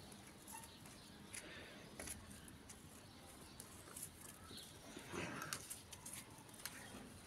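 Boerboel puppies play-fighting on grass, faint, with a few light clicks and a short louder sound about five seconds in.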